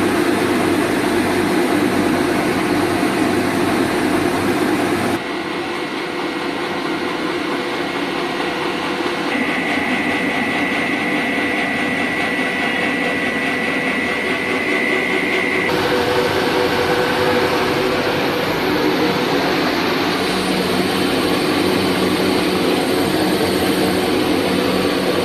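TSE95-P co-rotating twin-screw food extruder line running, a loud steady mechanical noise. Its character shifts abruptly twice, and a steady high whine sounds through the middle stretch.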